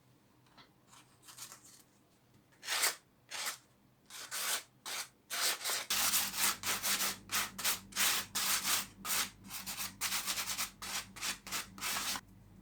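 Hand sanding of the wooden tray with sandpaper: a few separate scratchy strokes, then quick back-and-forth strokes from about halfway that stop shortly before the end.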